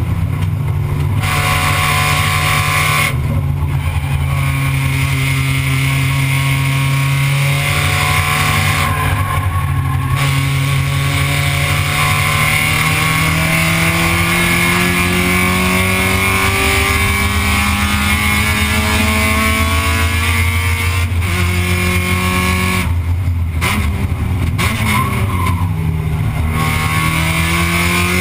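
Spec Miata's four-cylinder engine at racing speed, heard from inside the cockpit. Its note dips briefly at the start and about three seconds in, climbs slowly for several seconds through the middle, dips twice near the end, then climbs again.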